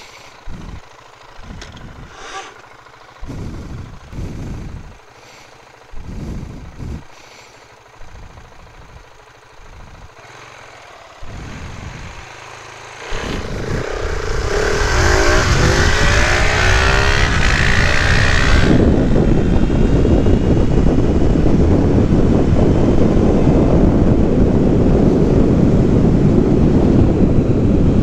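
Husqvarna 701's single-cylinder engine blipped in short revs at the start line, then a launch with a loud, rising whine as the bikes accelerate, giving way about five seconds later to a steady rush of wind noise at speed.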